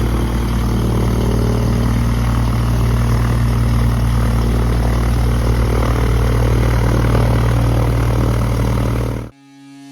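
Continental O-470-R flat-six piston engine of a Cessna 180F running steadily with its propeller turning. It cuts off abruptly near the end.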